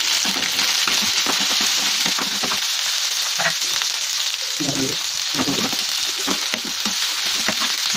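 Sliced onions and green chillies sizzling as they fry in hot oil in a non-stick pan, stirred with a steel spoon that scrapes and taps against the pan in short, irregular strokes.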